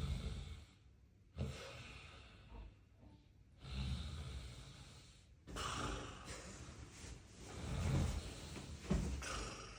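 A sleeping person snoring: low snores alternating with breathy out-breaths, one breath cycle every two seconds or so.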